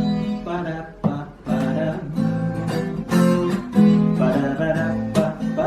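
Acoustic guitar strummed in a steady rhythm. About two seconds in, a male voice briefly scat-sings 'pa-ra-pa-pa-ram': the wordless intro to a bard song.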